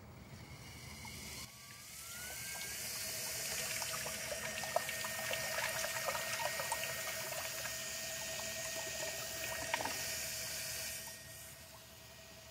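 Homemade trolling motor, an 18-volt Portaband bandsaw motor geared down to a 3D-printed prop and run off a 12-volt battery, winds up with a rising whine about a second and a half in. It then runs with a steady whine while the prop churns the water in the tub, and stops shortly before the end.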